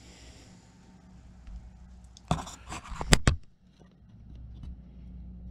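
A quick run of sharp clicks and taps, about two to three seconds in, from small tools and containers, such as a glue bottle, brush and beaker, being handled on a workbench, over a low steady hum.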